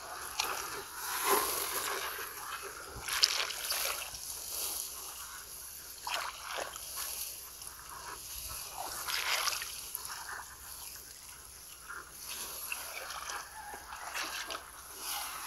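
Splashing and sloshing in a shallow, muddy water channel as bare feet wade through it and hands grope in the water, in irregular splashes every second or two.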